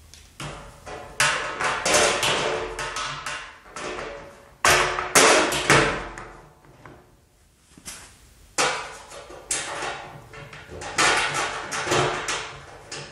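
Metal bracket and fasteners clanking and rattling against a steel wheelbarrow tray as they are fitted, with the tray ringing. The clatter comes in three spells, the loudest about five seconds in.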